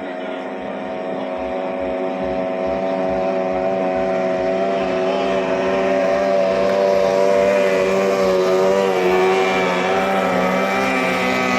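Racing boat's 18 hp outboard motor running at full speed with a steady, slightly wavering engine note, growing louder over the first several seconds.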